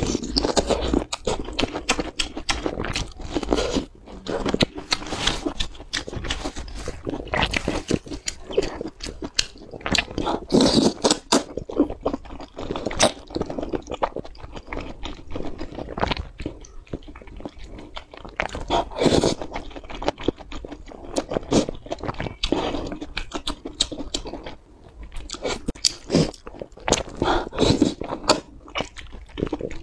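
Close-miked eating: chewing, biting and slurping of wide flat noodles and meat in a spicy sauce, a dense, irregular run of wet mouth sounds.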